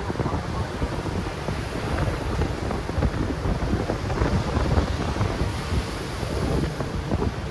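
Heavy wind buffeting the microphone on a moving motorcycle, a gusting low rumble with road and engine noise underneath.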